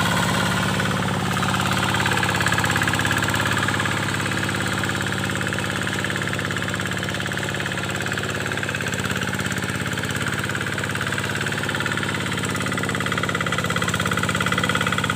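Kubota single-cylinder diesel engine of a two-wheel hand tractor running steadily, easing slightly in the middle and picking up again near the end.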